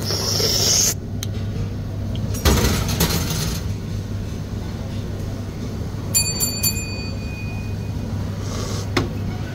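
Ice cubes knocking in a tall glass of iced latte as the glass is lifted off a scale and handled, with a short bright glassy ring about six seconds in, over a steady low hum.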